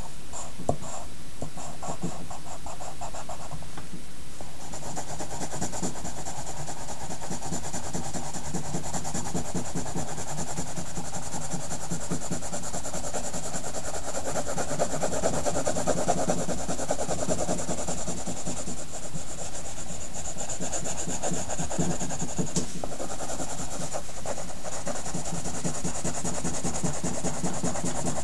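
Sketching strokes scratching steadily on paper in quick back-and-forth shading, with a constant faint high whine underneath.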